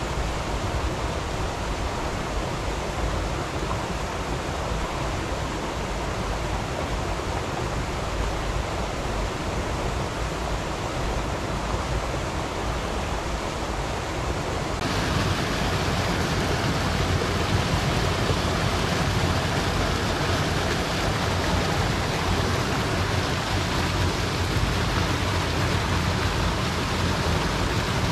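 River water rushing steadily. About halfway through it turns louder and brighter.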